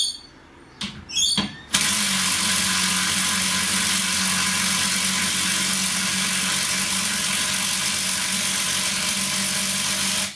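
Makita 40V XGT low-torque impact wrench hammering steadily under load as it drives a long lag screw into a pilot hole in timber, after two brief trigger blips; the hammering stops abruptly after about eight and a half seconds.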